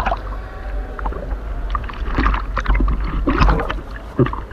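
Sea water sloshing and splashing around an action camera held at the waterline, in many short irregular splashes over a steady low rumble, as a swimmer moves at the surface.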